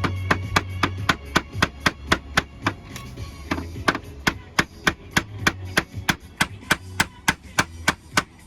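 Hammer rapidly and steadily tapping a nail in, about three sharp strikes a second, with radio music faintly underneath.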